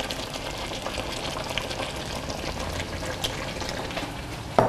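Sweet and sour chicken in thick sauce simmering and sizzling in a hot wok, with the heat just turned off, a steady bubbling hiss with a few light ticks. A single sharp knock just before the end.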